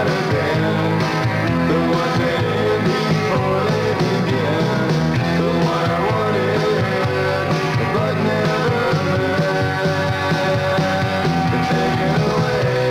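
Rock music: a full band playing a song, with a voice singing.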